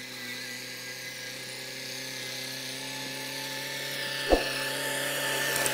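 Diesel farm tractor's engine running steadily as it pulls a disc harrow through stubble, growing louder as it comes closer. A single brief knock sounds about four seconds in.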